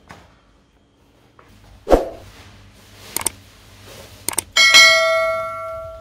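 Subscribe-button animation sound effect: a few sharp mouse clicks, then a bell ding that rings out and fades over about a second and a half. A single thump comes about two seconds in.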